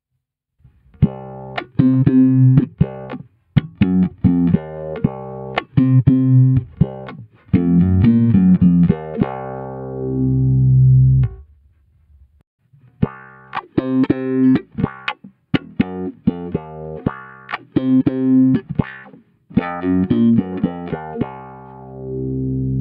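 Electric bass played through a Maxon AF9 Auto Filter envelope filter pedal set to upward drive and high range. The filter sweeps the tone open on each plucked note. Two funky phrases are played, each ending on a held note, with a short pause between them.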